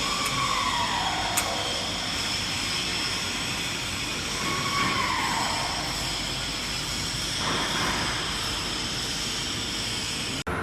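Machinery running steadily: a hiss with fixed high tones, two falling whines about four seconds apart, and a single sharp click near the start.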